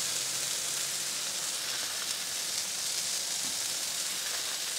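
Two ground-chuck burger patties sizzling steadily on a Blackstone flat-top griddle.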